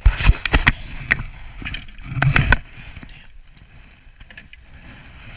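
Close handling noise: a jacket sleeve rubbing and knocking against the camera while a freshly caught yellow perch is held up in the hand. There is a flurry of sharp clicks and thumps in the first second and again about two seconds in, then it goes quieter.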